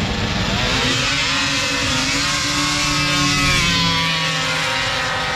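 Drag-racing snowmobiles accelerating hard down the snow strip, engines at high revs. The engine pitch climbs about a second in, then holds high and shifts as the sleds pass.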